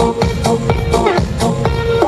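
Electronic dance music with a steady beat, about two strong beats a second, under held synth notes.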